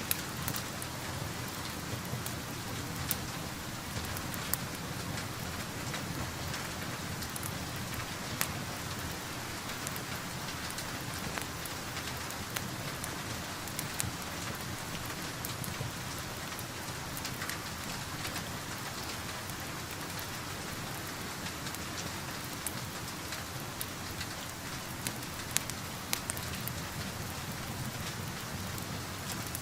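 Steady rain falling, an even hiss with scattered sharp pops and crackles from a fireplace over it.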